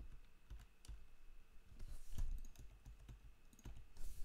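A few faint, scattered computer keyboard keystrokes and clicks.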